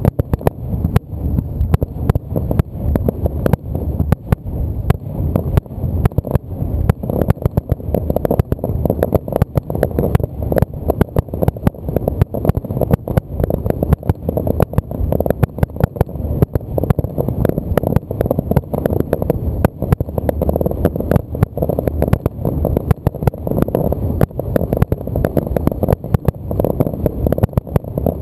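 Fireworks display: aerial shells bursting in a dense, continuous barrage of booms and bangs, several a second.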